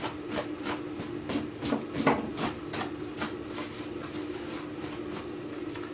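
Metal spoon stirring dry cornflour and gravy powder in a mug, with a run of quick clinks and scrapes against the mug, about two to three a second, over a steady low hum.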